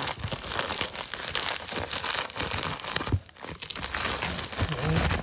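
Shipping package packaging crinkling and tearing as it is wrestled open by hand, a steady crackle of small crinkles that eases briefly a little past the middle.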